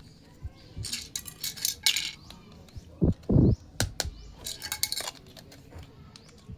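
Small plastic toy kitchen pieces being handled, clicking and clattering against each other, with two heavier, duller knocks about three seconds in.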